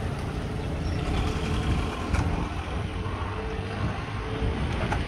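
Road traffic noise: motor vehicle engines running with a steady low rumble.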